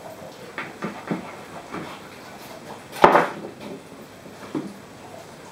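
Handling noises of plastic hose and small fittings on a workbench: a few soft knocks and clicks, with one sharp knock about three seconds in.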